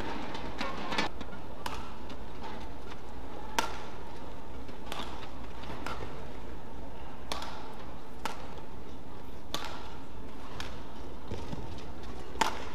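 Badminton rackets striking a shuttlecock in a fast rally: about a dozen sharp hits, roughly one a second, the loudest near the end, over a steady low hall hum.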